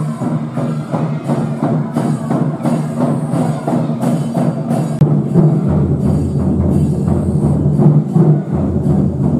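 Drum-led music, a quick, even run of drum strikes over a low steady tone. A deeper hum joins about halfway through.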